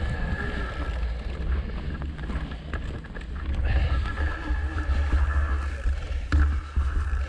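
Wind buffeting the camera microphone over the rolling and rattling of a bicycle on a dirt track, with a thin steady high whine and a knock about six seconds in.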